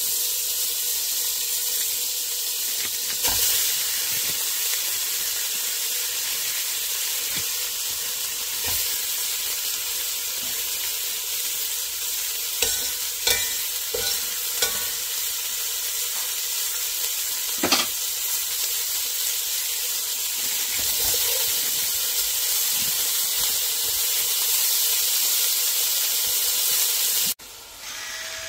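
Butter, then ground sausage and beef, sizzling steadily as they fry in a stainless steel stockpot, with a few sharp knocks of the stirring utensil against the pot. The sizzle cuts off sharply near the end.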